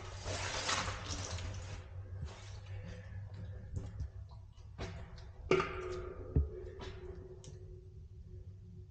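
Footsteps splashing through shallow water inside a culvert pipe, echoing, with scattered knocks. A sharp knock about five and a half seconds in rings on for a few seconds in the pipe.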